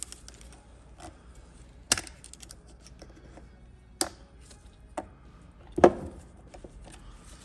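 Hand tools clicking and knocking against the metal parts of an 8L90 automatic transmission: four sharp knocks a second or so apart, the loudest near the end, with light ticks in between.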